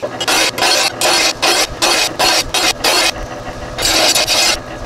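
A Bradley lawnmower blade sharpener grinding a steel mower blade, in rapid rasping strokes a few times a second as the blade is passed across the wheel, with a brief letup about three seconds in.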